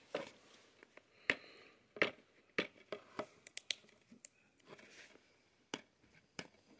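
Fingernails picking and scratching at a security sticker on a plastic DVD case: a scattered series of about a dozen small, irregular clicks and scrapes.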